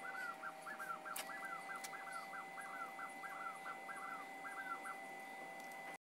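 A bird calling in a quick, even series of about fifteen short arched notes, roughly three a second, over a faint steady high tone.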